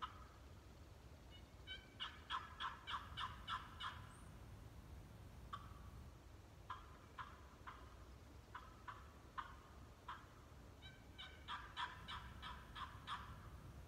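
Zink Wicked Series turkey box call played as hen talk. It gives a quick run of about eight yelps, then a series of spaced single clucks, then another run of yelps near the end.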